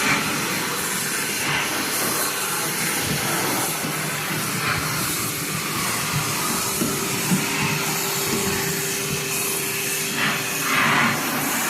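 NuTone central vacuum running steadily: a constant rush of air with a faint steady hum under it.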